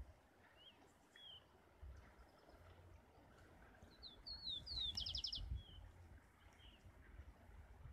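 A small songbird singing: two short chirps early, then about four seconds in a phrase of a few slurred whistled notes ending in a quick, even trill. Underneath, an uneven low rumble of wind on the microphone, loudest just as the trill plays.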